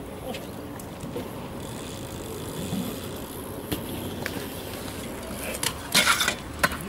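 Kick scooter wheels rolling on concrete with a few light clicks, then a short loud scrape and clatter about six seconds in as the scooter lands on a metal rail.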